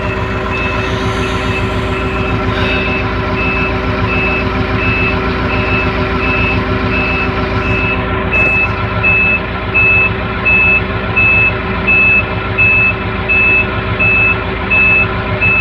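Grove GMK5130 mobile crane's diesel engine running steadily while the telescopic boom is being extended, heard inside the operator's cab. A high warning beeper sounds at an even pace of about three beeps every two seconds, louder from about halfway through.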